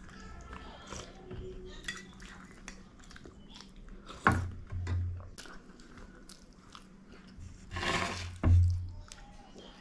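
Close-up eating sounds: chewing momos and sipping chicken soup from a spoon. A sharp click and a low thump come a little over four seconds in, and a louder noisy rush followed by a heavy thump about eight seconds in.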